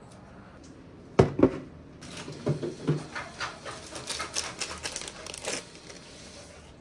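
Two sharp knocks about a second in, then a run of crinkling, tearing and small clicks as a foil tea-bag sachet is torn open and handled over a mug on a wooden counter.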